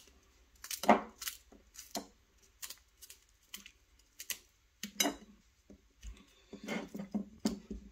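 Chef's knife slicing garlic cloves held in the hand, with small irregular clicks and taps as the blade cuts and the slices and skins drop into a ceramic baking dish.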